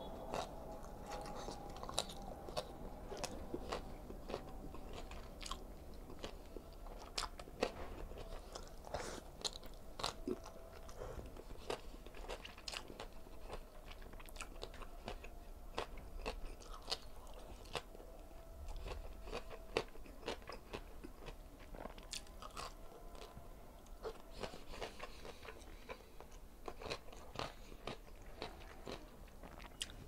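Close-miked chewing and biting as a man eats string bean adobo and rice by hand: wet mouth sounds broken by frequent irregular sharp clicks and crunches.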